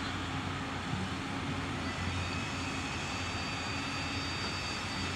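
Steady diesel engine rumble of a Hyundai crawler excavator at work loading soil, with a dump truck idling alongside. A faint, thin high steady tone joins about two seconds in.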